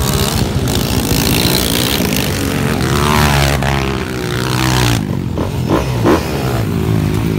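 Underbone racing motorcycle engines revving hard on a dirt track, the engine note rising and falling as the bikes accelerate and shift.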